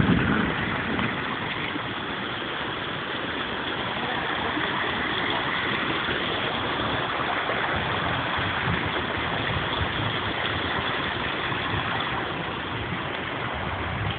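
Heavy tropical rain pouring down steadily, an even rushing hiss with no break, with a brief low thump right at the start.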